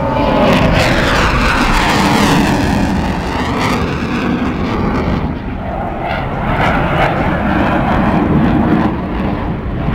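Blue Angels F/A-18 Hornet jet roaring low overhead. Its tone sweeps and phases in the first few seconds as it passes, and the loud rumbling roar carries on as it draws away.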